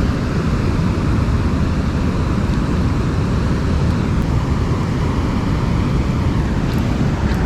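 Loud, steady rushing of water pouring through a large dam spillway, an even noise heaviest in the low end.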